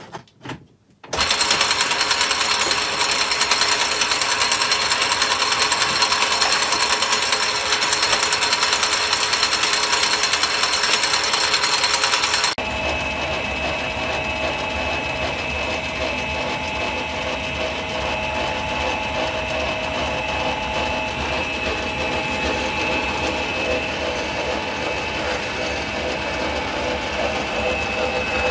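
Myford ML7 lathe starts up about a second in and runs steadily with a loud mechanical whirr. About halfway through the sound changes abruptly to a quieter, even run with a steady whine, the spindle turning at its lowest direct-drive speed with the gear drive engaged.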